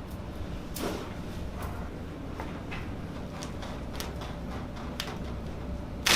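A few scattered light clicks and knocks over a steady low hum, with a sharper knock right at the end.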